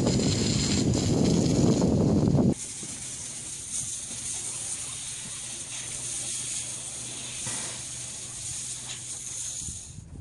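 Wind buffeting the microphone with a loud, uneven rumble that cuts off abruptly about two and a half seconds in, leaving a steady hiss with a faint low hum.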